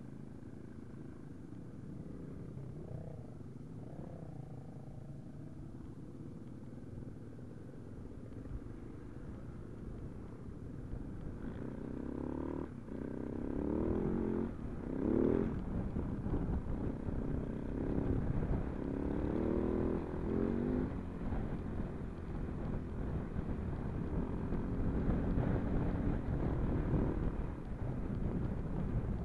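Husaberg FE570 dirt bike's single-cylinder four-stroke engine heard from the rider's helmet: running at low revs at first, then from about twelve seconds in louder, revving up and down as the bike rides off across the grass.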